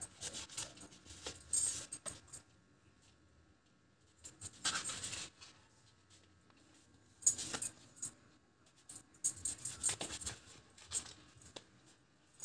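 Kitchen knife sawing through the crust along the sides of a sponge cake, soft scratching strokes coming in several short bouts with pauses between.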